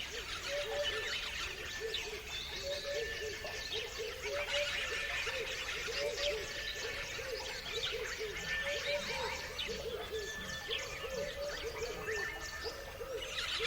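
Many birds chirping together in a dense chorus of short, high calls. Underneath runs a steady string of lower, repeated calls.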